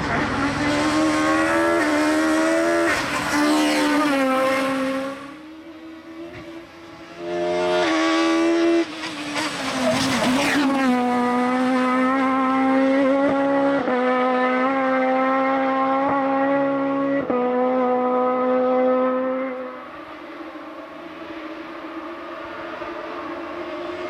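Peugeot 306 Maxi kit car's naturally aspirated four-cylinder engine running flat out at high revs, its pitch climbing and stepping through a series of quick gear changes as the car passes at speed. It falls away sharply about twenty seconds in as the car goes out of earshot.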